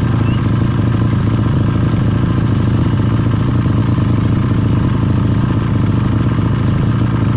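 An engine or motor running steadily with a low hum and a light clatter over it.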